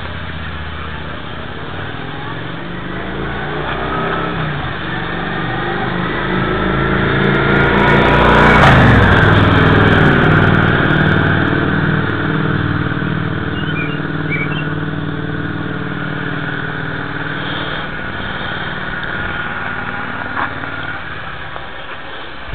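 Quadcopter drone's electric motors and propellers buzzing, swelling to a peak about eight or nine seconds in as it comes close, then fading as it moves away.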